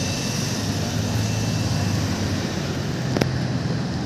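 Car engines running in street traffic: a steady low engine hum under road noise. A single sharp click comes about three seconds in.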